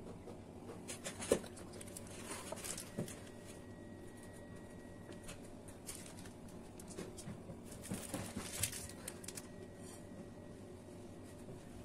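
Faint kitchen handling sounds: scattered small clicks, a light knock and rustles as a piping bag and a small knife are worked over a buttercream cake. A faint, high, steady tone comes and goes twice.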